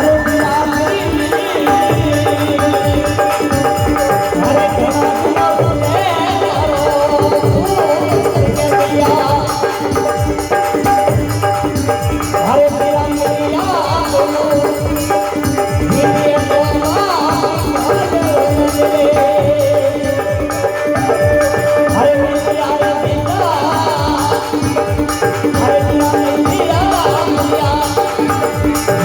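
Rajasthani folk music: a voice sings wavering melodic lines over a steady held drone, with hand-drum and jingling percussion keeping a continuous beat.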